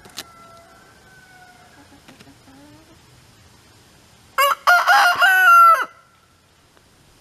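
A rooster crowing once, about four and a half seconds in, a loud call lasting about a second and a half. Before it, faint, drawn-out chicken calls.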